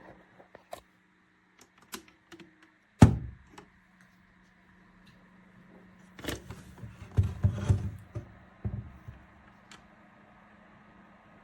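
Handling noises: scattered clicks, a sharp heavy thump about three seconds in, then a run of knocks and rustling a few seconds later, over a faint steady low hum.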